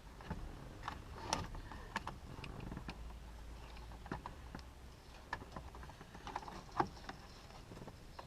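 Faint, irregular plastic clicks and small knocks as a screwdriver presses in a retaining tab and the cruise control switch is worked loose from a steering wheel, with one sharper click about seven seconds in.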